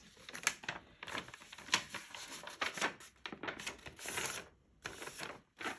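Watercolour brush working on paper: a series of short, irregular, scratchy strokes and dabs.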